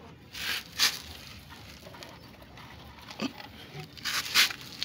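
Dry husk bedding rustling in a few short bursts as a hand rummages through it among pet hedgehogs, the loudest burst near the end.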